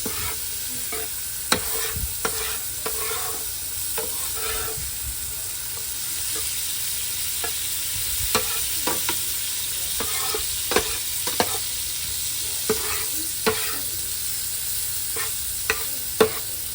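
Vegetables sizzling as they fry in a pan, with a steady hiss. A utensil stirs them, scraping and clicking against the pan at irregular moments.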